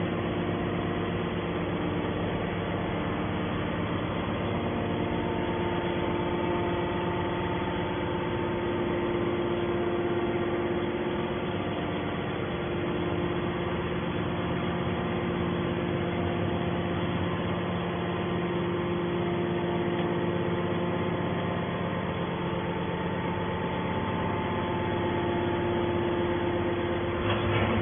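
Hydraulic scrap metal baler running steadily: an even machine hum from its motor and hydraulic pump, with several constant tones.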